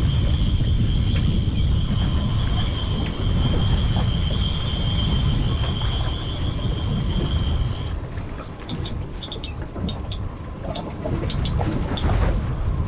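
Outboard motors running at trolling speed under a steady low rumble of wind and hull noise. A steady high whine runs over it and stops suddenly about eight seconds in, after which light rapid ticking is heard.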